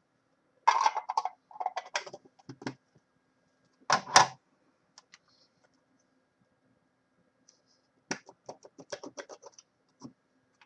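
Hard clear plastic card cases being pulled apart and set down: runs of quick plastic clicks and clatter, a sharp double clack about four seconds in, and another fast run of clicks near the end.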